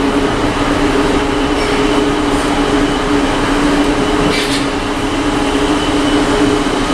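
Cruise ship's ventilation machinery running with a steady drone and a low, even hum.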